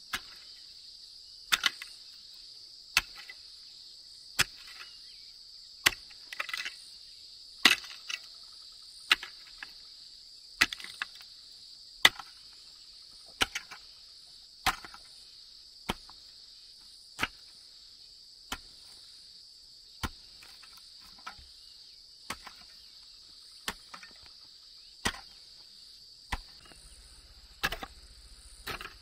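Hammer blows on a chisel cutting a mortise into a wooden house pillar: a sharp knock about every second and a half at a steady pace. Insects trill steadily in the background.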